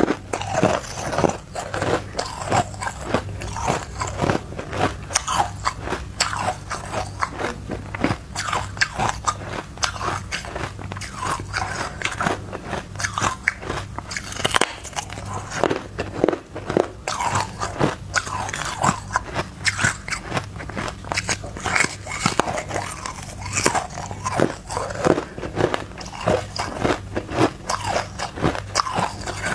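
Hard frozen matcha ice being bitten and chewed close to a clip-on microphone: crisp crunches and cracks in quick succession as the ice breaks between the teeth.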